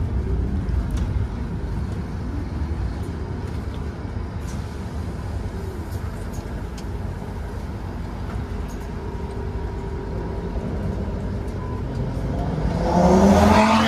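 Inside a Scania K230UB OmniLink bus: the diesel engine and running gear rumble steadily as the bus draws up and stands at a stop. Near the end a louder, brief burst of noise rises over it.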